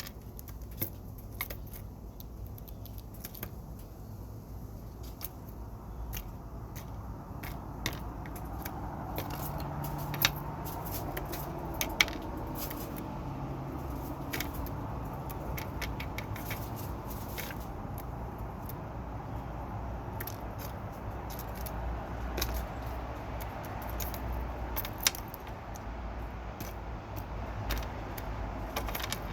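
Birds pecking and tapping at peanuts: scattered, irregular sharp clicks, a few louder than the rest, over a low steady rumble.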